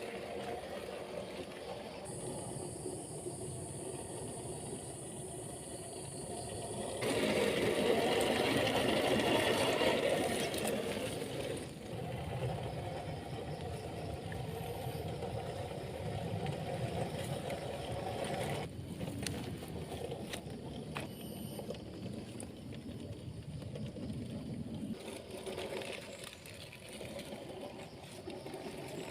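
Small electric motor and gears of an RC rock crawler running, a steady mechanical whir that gets louder for a few seconds about a quarter of the way in.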